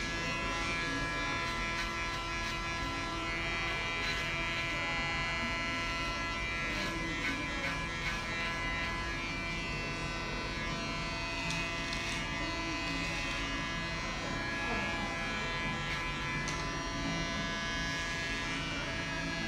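Panasonic electric hair clipper running with a steady buzz as it trims hair at the side of the head over a comb.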